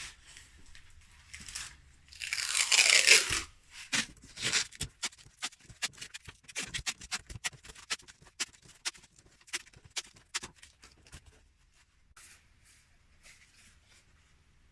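Something torn open in one long rip lasting about a second and a half, followed by a run of sharp crackles and clicks that thins out and stops about ten seconds in.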